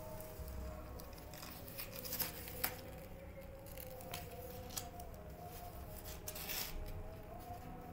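Faint rustling and a few short, sharp clicks from newborn kittens nursing and shifting against their mother cat in a cardboard box.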